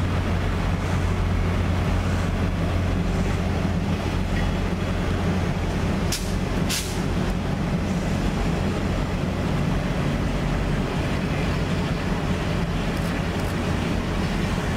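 Passenger cars of a train rolling past at track side, a steady rumble of steel wheels on the rails, with two short sharp sounds about six seconds in.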